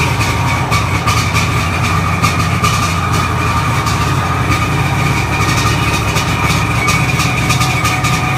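1997 Sea-Doo GTX's 787cc two-stroke twin engine running at a steady, loud idle just after starting, its top end freshly rebuilt.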